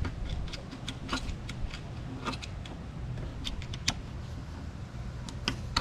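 Scattered small metallic clicks and scrapes of a screwdriver and fingers working the spring-loaded lock and ball-joint end of a jet ski's reverse cable, close to the microphone, with a low rumble underneath.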